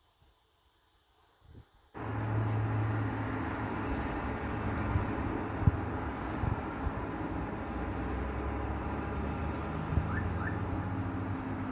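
Steady engine drone with rushing noise, starting abruptly about two seconds in after near silence.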